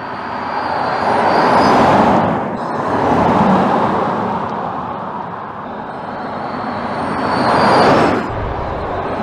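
Skoda Enyaq RS iV electric SUV driving past twice, about two seconds in and again near the end. Tyre and wind rush swells and fades with no engine note, under a faint high whine. The second pass cuts off suddenly.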